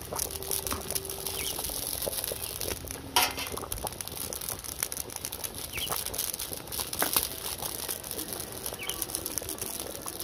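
Coconut curry bubbling in a wide pan over a wood fire, a steady sizzling and crackling with many small pops, and a ladle stirring through it, with a few sharper knocks, the loudest about three seconds in.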